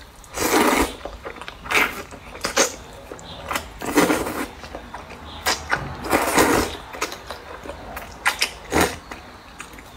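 Wide rice noodles being slurped from a cup of broth: a series of noisy slurps with short pauses and chewing between them.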